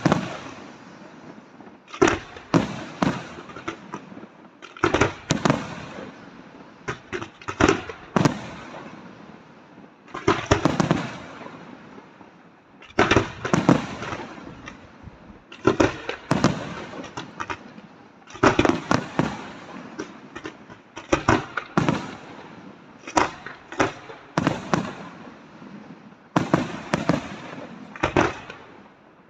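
Aerial firework shells bursting in a professional display: sharp loud bangs every second or so, often in quick clusters of two to four, each trailing off into a rumbling echo.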